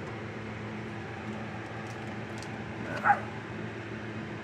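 Steady background hum with a few faint ticks, and one short, loud high yip about three seconds in.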